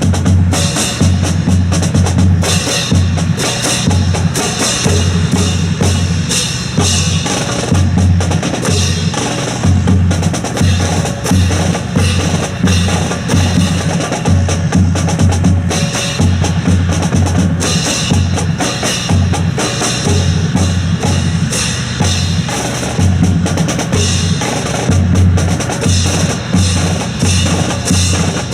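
Percussion rhythm: a steady, driving bass-drum beat with sharp, wood-block-like clacks over it.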